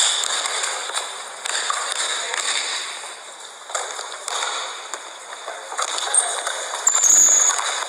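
Basketball sneakers squeaking and scuffing on a hardwood gym floor, mixed with short sharp knocks of play, with two high squeaks near the end.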